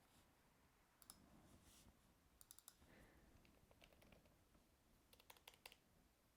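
Faint computer mouse and keyboard clicks in near silence, scattered in small groups, a few at a time.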